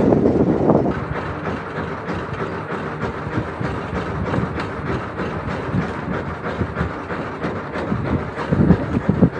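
Small fishing boat's engine running steadily, with wind and water noise rushing over it. A louder gust comes near the end.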